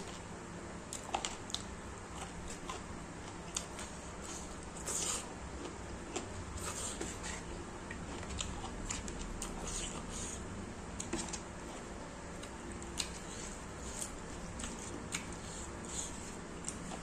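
Eating rice by hand: fingers squishing and mixing rice with dal and pork curry on a plate, along with chewing and lip-smacking, heard as many short wet clicks scattered throughout.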